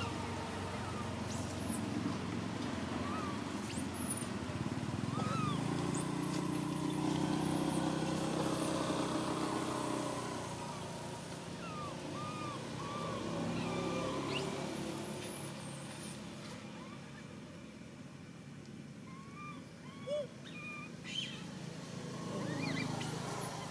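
A motor vehicle's engine passing by, its hum building to its strongest about six to ten seconds in and then fading, with short chirping calls scattered over it.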